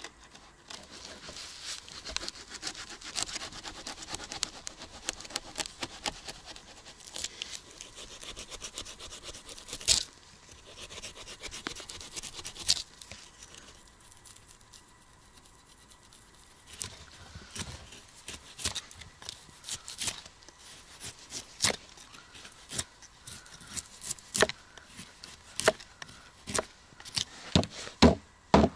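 A knife scraping scales off a frozen pike on a wooden chopping block, a fast rasping for the first dozen seconds. After a short lull come separate knife strikes through the frozen fish into the wood, which grow louder and come about once a second near the end.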